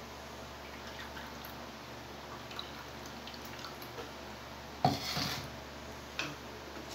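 Blended chayote juice dripping through a small plastic sieve into a glass, in faint scattered drips. About five seconds in, the plastic blender jar is set down on a stone countertop with a loud clunk, and there is a lighter knock a second later.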